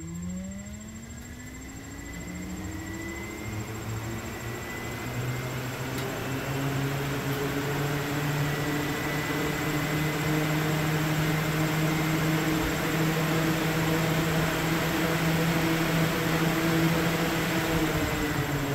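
Replacement Jeep Grand Cherokee WJ electric cooling fan motor run on a bench power supply, spinning up with a rising whine over the first few seconds, then running steadily with a whir of motor and blades that grows a little louder: the new fan works.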